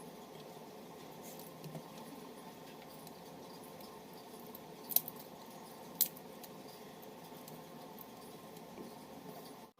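Light clicks and ticks from small repair tools handling a smartphone, with two sharper clicks about five and six seconds in, over a steady low background hum.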